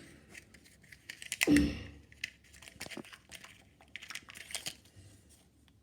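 Small plastic packaging and a tiny toy figure being handled: scattered light clicks and crinkles, with one louder bump about a second and a half in.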